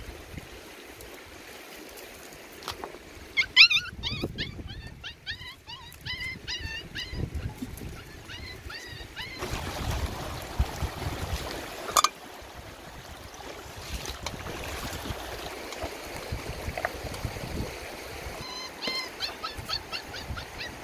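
A run of short, high animal calls, several a second, then river water splashing and gurgling as a metal cooking pot is dipped and filled, ending in one sharp knock. The short high calls come again near the end.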